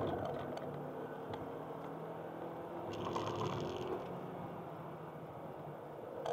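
Cabin sound of a Honda Accord Type-S Wagon driving on a wet track: the engine runs steadily under road and tyre noise, with a brief hiss about three seconds in.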